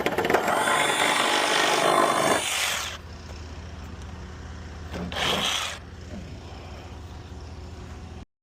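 Power saw cutting through a wooden board for about three seconds, with a steady high motor whine over the cutting noise. A shorter burst of the same kind of noise comes about five seconds in.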